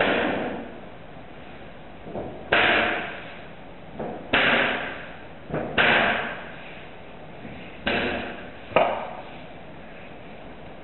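A series of six sharp, loud bangs at irregular spacing, each dying away over about a second.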